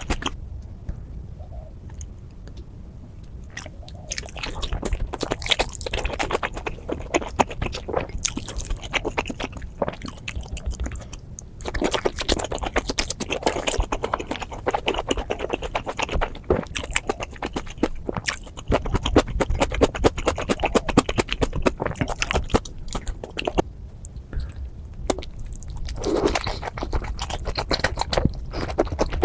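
Close-miked chewing and mouth sounds of someone eating steamed momos (dumplings): a dense, irregular run of small clicks, quieter for the first few seconds.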